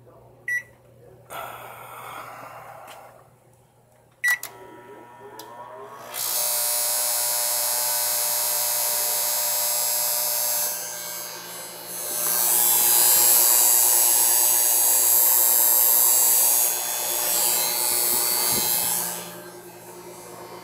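Samsung microwave oven with its cover off: keypad beeps, then a loud, harsh electrical buzz starts about six seconds in while it heats. The buzz grows louder partway through and stops near the end, followed by a beep. The buzz is the unexplained noise that the owner asks about.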